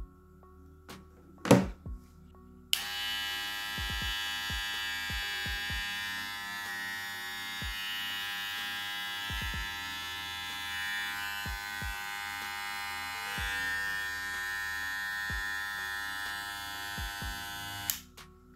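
Wahl Cordless Senior hair clipper switched on about three seconds in and running steadily for about fifteen seconds, a buzz with many overtones, then switched off just before the end. A sharp knock comes shortly before it starts.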